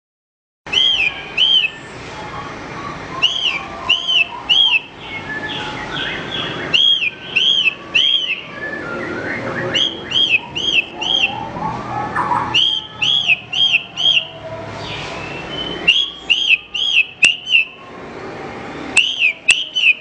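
Javan bush lark (branjangan) singing: repeated arched, whistled notes in quick groups of two to five, over a varied, rambling twitter. The song starts abruptly just under a second in.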